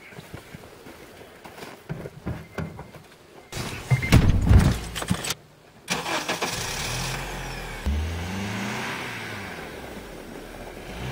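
Footsteps crunching in snow, then a couple of loud knocks like a car door shutting. After a short pause, a Honda Element's four-cylinder engine starts and revs up and down, then runs steadily as the car pulls away.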